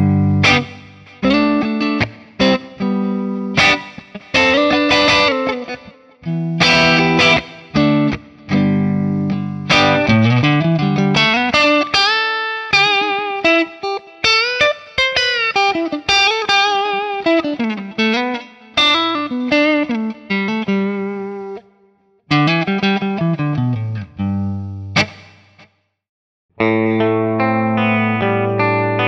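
Electric guitar, a Telecaster on its neck pickup, played through a clean amp-simulator rig with a British 4x12 cabinet: picked single-note lines and chords in short phrases with brief pauses. About 26 s in it stops briefly, then a new phrase starts on an 80s Tele clean rig with a 2x12 cabinet.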